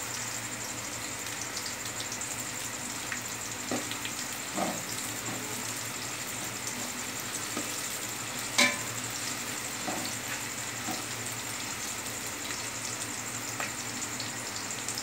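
Sliced onions frying in hot ghee in a metal pot: a steady sizzle as they cook toward golden brown. A metal spoon stirs them, knocking and scraping against the pot now and then, with the sharpest knock a little past halfway.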